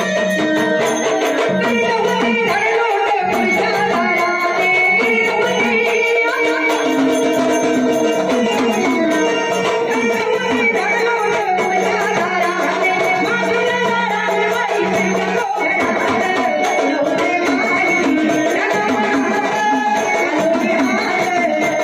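Live Marathi folk music from a jagran party: a gavlan sung by a woman, over a hand drum and rattling percussion.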